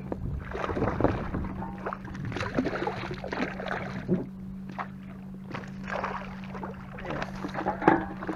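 Water splashing and irregular light knocks and rustles on a Hobie Revolution pedal kayak, over a steady low hum.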